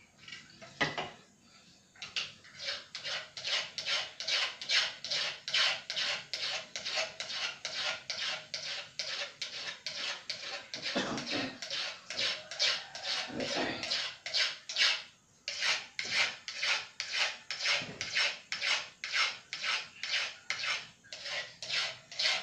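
Knife scraping in quick rhythmic rasping strokes, about two to three a second, starting about two seconds in with a couple of short pauses.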